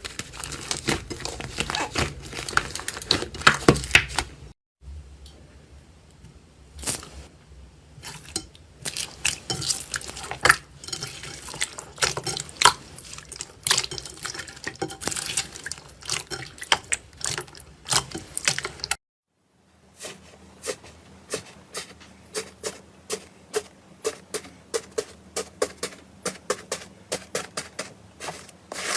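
Slime being squeezed, poked and stretched by hand, making rapid sticky clicks, pops and crackles. It comes in three separate stretches, broken by short silences about four and a half seconds in and about nineteen seconds in.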